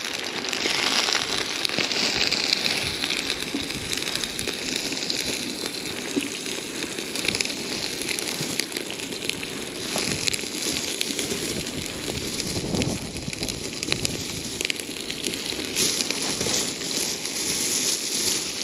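Pieces of pork rib sizzling and crackling as they fry in hot oil with onions in a kazan, with a plastic bag rustling as more pieces are taken out.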